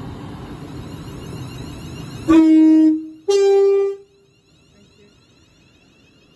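Train running past, its rumble cutting off suddenly about two seconds in, followed by a loud two-tone train horn: a lower note, then after a short break a higher one, each about half a second long.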